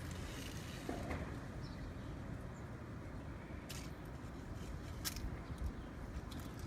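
Strong wind rumbling and buffeting against the microphone, with a few short crackles in the second half, like dry leaves being blown along the ground.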